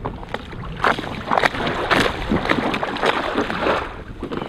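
Water splashing and sloshing against an inflatable kayak's hull as the paddler rocks the boat hard from side to side, heaviest from about a second in to near the end.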